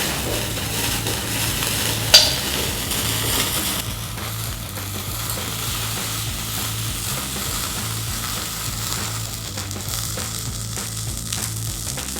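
Burning firework fizzing with a steady hiss, with one sharp crack about two seconds in; the hiss drops lower after about four seconds.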